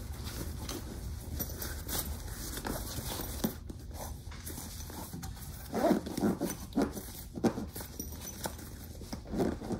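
Padded fabric storage bag being handled as bulky goggles and gloves are pushed into it: irregular rustling and shuffling, with a few louder rustles past the middle.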